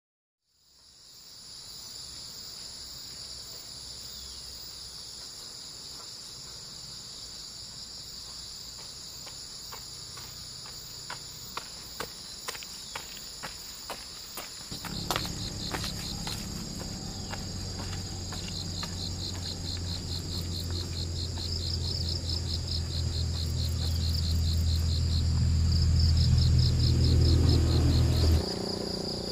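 Steady high-pitched insect chorus, joined in the second half by a pulsing trill from another insect. A run of sharp clicks comes about halfway, then a low rumble grows steadily louder and stops abruptly near the end.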